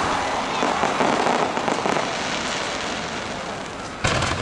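Aerial firework shells: a dense crackling from bursting stars that fades over the first two seconds, then a single sharp boom from another shell near the end.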